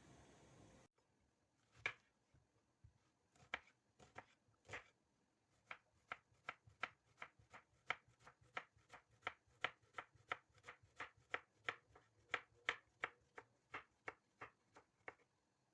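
Knife chopping on a cutting board: a few scattered cuts, then steady, even strokes at just under three a second.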